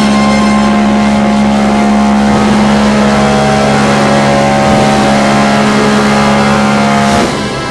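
Queen Elizabeth's ship's whistle sounding one long, deep, steady blast that cuts off suddenly about seven seconds in: the liner's sailaway signal as she leaves port.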